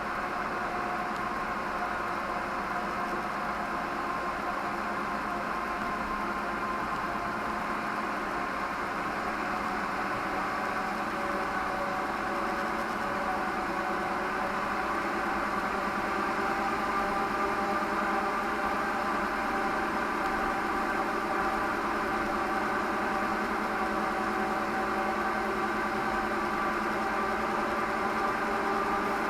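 Car engine running with a steady hum heard inside the cabin through a dashcam microphone, slowly getting a little louder.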